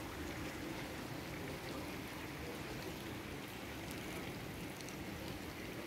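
Steady rain falling on a wet street and a puddled car park, an even hiss with faint scattered ticks of drops.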